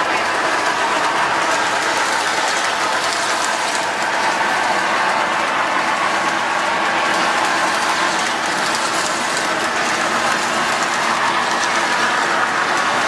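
Three-rail model freight train rolling past, its cars' metal wheels running on the track in a steady rolling noise with a faint steady whine over it.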